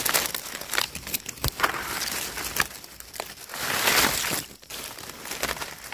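Dry fallen leaves crackling and rustling as leaf litter is handled and pushed aside, in many short crackles. A longer, louder rustle comes about four seconds in.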